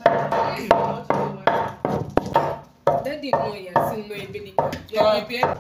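Wooden pestle pounding dry roasted pepper and ehu (calabash nutmeg) seeds in a mortar, grinding them down for a sauce. Steady rhythmic strikes, about three a second.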